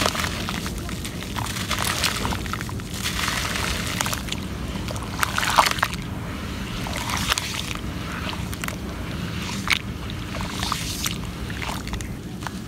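Hands stirring and squeezing muddy water in a terracotta clay pot, with irregular sloshing and splashing. At the start, crumbled dry red dirt falls into the water. A steady low rumble runs underneath.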